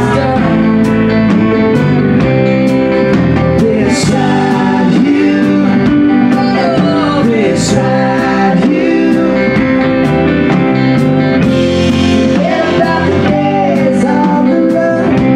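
A live band plays a song with electric and acoustic guitars, keyboard, drums and violin, and a singer over a steady drum beat.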